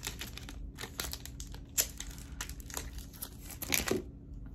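A candy bar wrapper crinkling and tearing as it is opened, in irregular crackles that stop about four seconds in.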